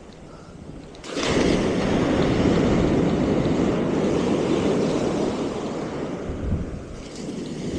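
Surf on a beach: a wave breaks suddenly about a second in and washes up the shore, easing off near the end.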